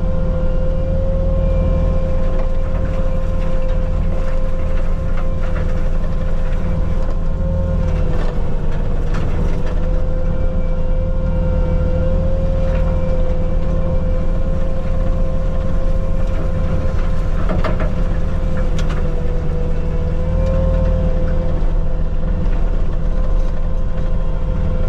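Bobcat T750 compact track loader running a Diamond Mowers disc forestry mulcher under steady work. It makes a loud, steady drone with a high whine that sags slightly in pitch a few times. A few sharp cracks sound now and then, about a third of the way in and again past the middle.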